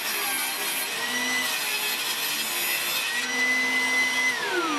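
Homemade table saw driven by a 1400 W Status SP190PL circular saw, its stock 190 mm blade ripping a thin strip of waterproof plywood, the motor whine dipping under the cut. It then runs free briefly and is switched off about four seconds in, the whine falling as the blade spins down, with a shop vacuum running alongside.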